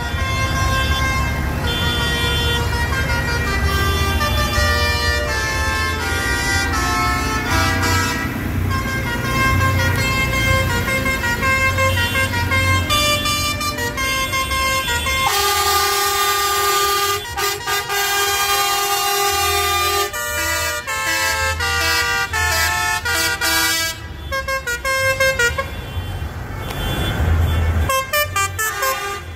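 Many tractor horns honking at once in a slow convoy: overlapping held notes at different pitches over the low running of tractor engines. About halfway through, the engine rumble drops back and the horns carry on in shorter blasts.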